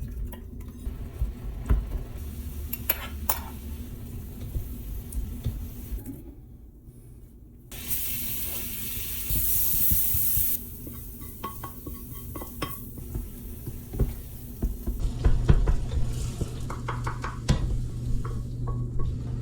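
Kitchen cooking sounds: utensils clinking and scraping against dishes and pans while food sizzles. About eight seconds in, a louder steady hiss runs for a couple of seconds.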